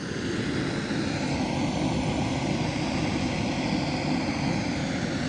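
A steady, even mechanical drone that fades in at the start and holds unchanged.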